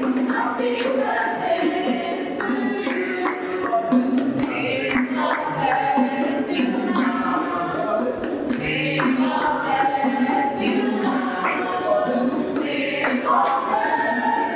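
A choir singing a slow worship song.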